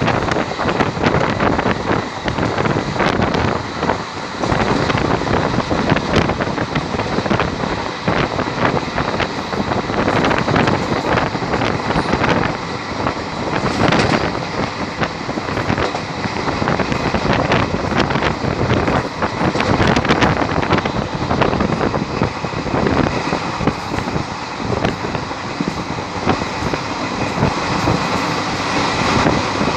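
Passenger train running at speed, heard from an open coach door: a steady rush of air and track noise, with frequent sharp clicks from the wheels on the rails.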